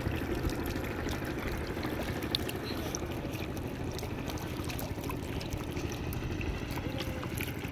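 Shallow canal water rushing steadily past a net barrier, a continuous flowing and pouring sound with small splashes.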